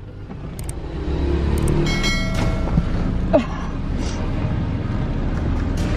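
Car interior rumble of a car on the road, a steady low drone, with a brief ringing tone about two seconds in.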